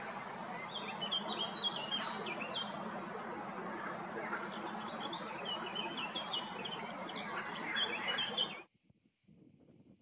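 Small birds chirping and twittering in quick runs of short high notes over a steady outdoor background hiss, with a thin steady high tone; it all drops away suddenly near the end.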